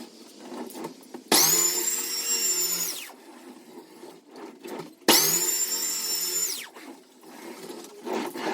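A handheld power tool run in short bursts: its high-pitched motor starts abruptly, runs for about a second and a half, then winds down with falling pitch. This happens twice, with a third start near the end, and faint scraping noise in the gaps.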